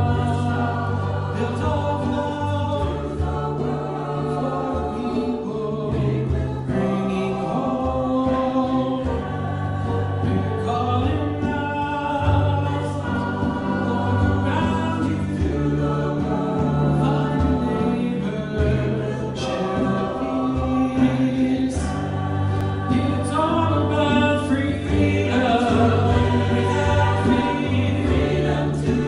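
Small mixed choir singing a song in English, with a male lead voice at a microphone over the group and sustained low accompanying notes beneath.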